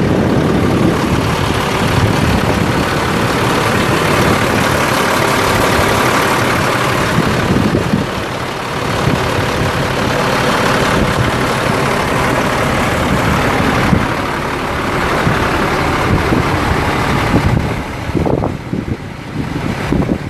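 Heavy diesel truck engine idling steadily, with wind buffeting the microphone.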